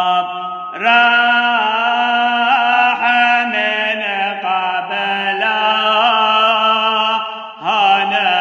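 A solo male voice chanting a Syriac Orthodox farewell hymn in Syriac, unaccompanied. He holds long notes with small ornamental turns and stops briefly for breath a little under a second in and again near the end.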